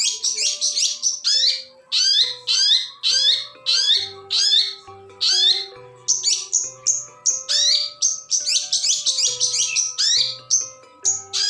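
Long-tailed shrike (pentet) singing a fast run of sharp, sweeping chirps, about two a second, over background music with sustained notes.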